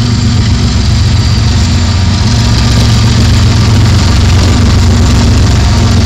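Norfolk Southern SD60E and ES44AC diesel-electric locomotives passing close by, their diesel engines running with a loud, steady low drone.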